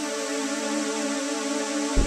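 Background electronic music: soft, sustained synthesizer chords held steady, with a deep bass beat coming in right at the end.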